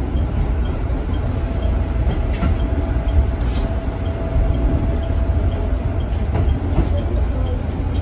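Electric train running slowly into a station platform, heard from behind the driver's cab: a steady low rumble, with a faint steady whine for a few seconds in the middle.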